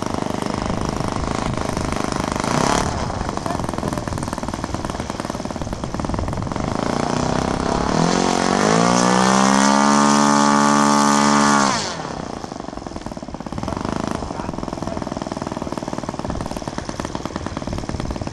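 Cessna 152's engine running at low throttle, then opened up about eight seconds in to a rising, then steady, high whine, and cut back suddenly to idle about four seconds later.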